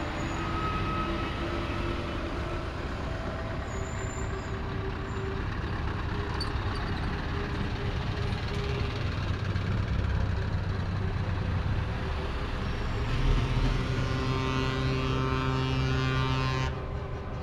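Heavy trucks driving past in a convoy, their diesel engines running steadily. From about three-quarters of the way in, a steady pitched horn tone sounds for a few seconds and then cuts off suddenly.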